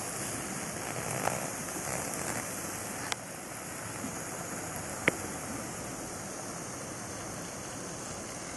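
Steady hiss and sizzle of a hamburger patty frying on low heat in a Jetboil fry pan over its gas burner, with three sharp clicks.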